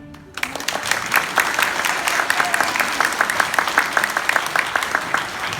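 Applause: many hands clapping, starting about half a second in and going on steadily.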